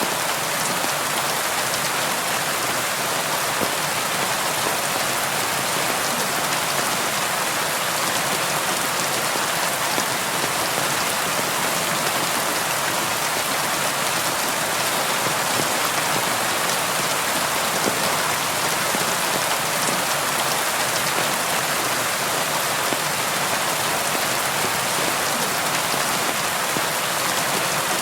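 Steady rain falling on window glass: an even hiss with faint scattered drop ticks, never letting up.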